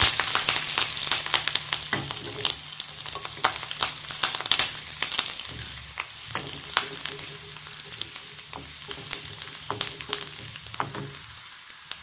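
Tempering spices, curry leaves and green chilli sputtering and crackling in hot oil and ghee in a kadhai, stirred with a wooden spatula. The sizzle is busiest at first and dies down gradually.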